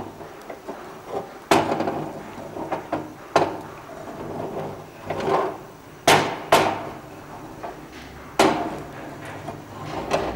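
Sharp metallic knocks and clinks, about five loud ones spaced a second or two apart, as an iron tawa is gripped with tongs and shifted over the gas burner, over a low steady hum.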